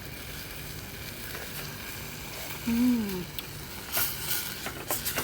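Chicken liver sizzling and simmering in a pan in its own sauce, a steady hiss, with a utensil clinking and scraping against the pan from about four seconds in.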